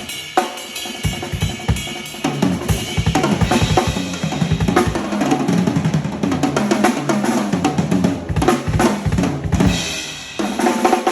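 Drum kit being played: a fast, busy pattern of bass drum and snare hits with cymbals. It breaks off briefly near the end, then starts again.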